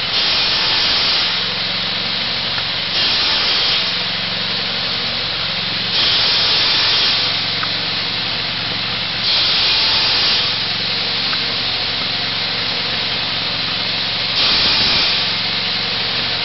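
Homemade chainsaw driven by a ZID engine running steadily, with about five louder, hissing stretches of roughly a second each as the chain bites into wood.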